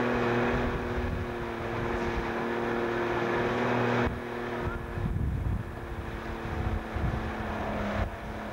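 Outboard motor running steadily with water noise. About four seconds in the sound changes abruptly: the engine note becomes fainter and wind buffets the microphone in gusts.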